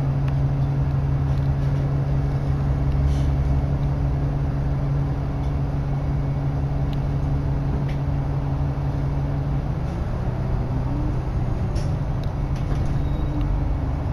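Inside a moving Nova LFS articulated diesel city bus: a steady engine and drivetrain hum with road noise, the engine note changing pitch about ten seconds in.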